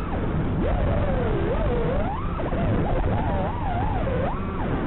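FPV quadcopter's brushless motors whining, the pitch swooping up and down with the throttle, over a steady rushing noise.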